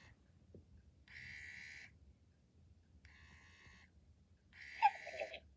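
Hasbro animatronic Grogu toy's speaker playing three short electronic sounds, each about a second long and spaced about a second apart, the last and loudest with a falling tone. This is the toy's power-down response to having its head pressed and held.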